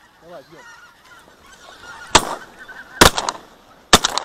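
Shotgun shots fired at a flock of geese: three loud reports roughly a second apart, starting about halfway through, over the continuous honking of geese.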